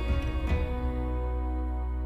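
Background music: a soft instrumental whose notes are struck near the start and again about half a second in, then held as a chord that slowly fades.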